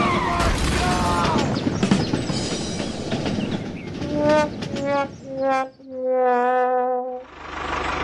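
A noisy crash and clatter, then a four-note descending "wah-wah-wah-wahhh" sad-trombone sound effect, its last note long and wavering, marking the toy train's derailment. Just before the end a steady low engine hum starts.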